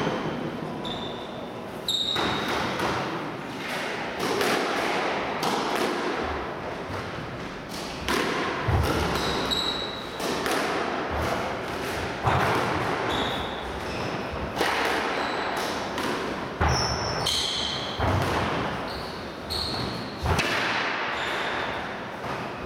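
Squash rally: the ball smacking off rackets and thudding against the court walls and floor every second or so, echoing in the court. Short high squeaks from players' shoes on the wooden floor come between the shots.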